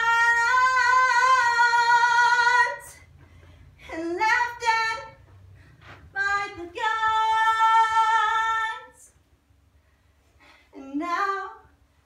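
A woman singing unaccompanied in four phrases with pauses between them: two long held notes with vibrato, and two shorter phrases, the last one near the end.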